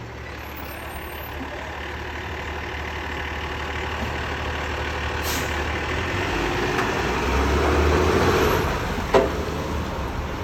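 Garbage truck engine running, growing steadily louder. A single sharp bang about nine seconds in is the loudest moment.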